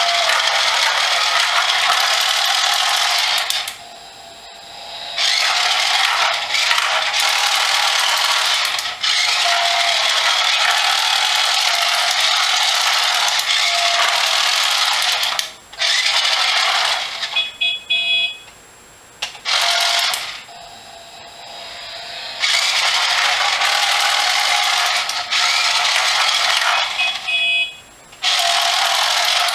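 Small electric gear motor of a toy remote control car whirring as the car drives, in long runs with several short stops. A few short electronic beeps sound during two of the stops.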